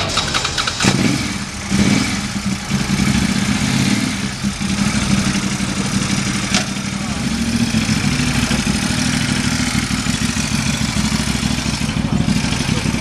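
Motorcycle engine starting about a second in, revving briefly, then settling into a steady idle.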